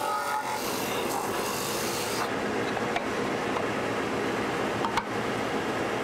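Craftsman belt/disc sander running with a wooden bandsaw-box piece held against its coarse-grit sanding disc, a steady scraping rasp of abrasive on wood. The higher hiss drops away about two seconds in, and there is a small knock about five seconds in.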